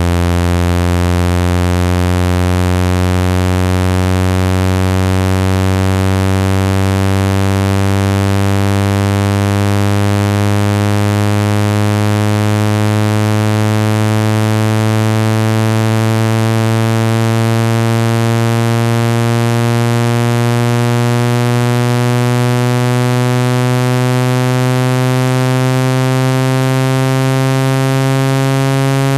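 Synthetic low, buzzy water-eject tone, rich in overtones, its pitch rising slowly and steadily. It is played through a speaker at full volume to vibrate trapped water out of the speaker grille.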